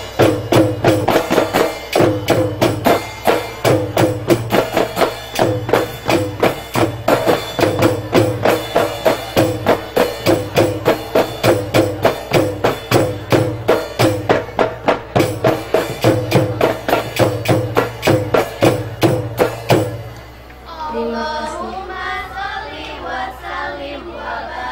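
Marawis ensemble drumming: frame drums and hand drums beat a fast, even rhythm of about three strokes a second over repeated low thumps of the big bass drum. The drumming stops suddenly about twenty seconds in, and a voice carries on alone.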